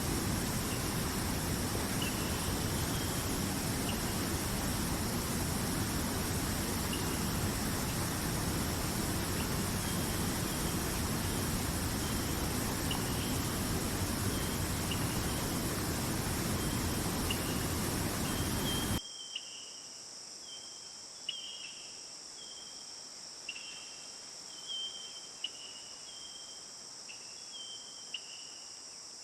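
Insects shrilling steadily at a high pitch, with repeated short chirps, over a loud, even rushing noise. About two-thirds of the way through, the rushing cuts off abruptly, leaving only the insect drone and the chirps.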